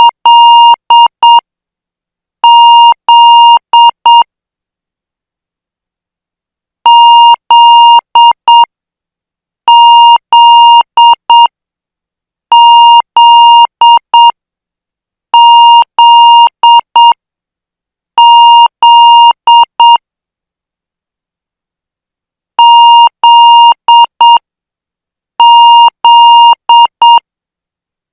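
Morse code practice tone, a high-pitched steady beep keyed in dots and dashes at a slow 8 words per minute. The characters come one every few seconds, with a longer pause about two-thirds of the way through.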